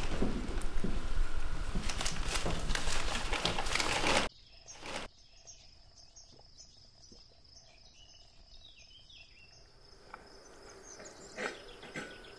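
Loud crackling, rustling noise full of small clicks, cut off abruptly about four seconds in. Then a quiet room with a cricket chirping steadily and a few faint clicks of eating.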